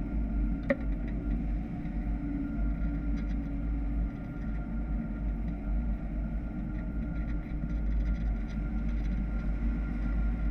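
Wind buffeting the microphone of a camera fixed to a hang glider in flight: a steady, heavy low rumble with a faint steady high tone above it. A single sharp click comes just under a second in.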